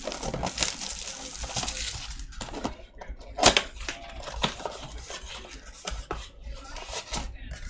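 Foil trading-card pack wrappers crinkling and tearing as packs are opened, with cards being shuffled by hand, and a sharp crackle about three and a half seconds in.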